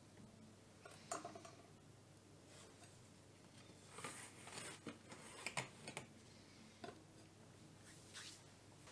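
Faint, scattered clicks and light taps of a kitchen knife and metal tart pan being handled on a table, a few soft knocks spread across several seconds over quiet room tone.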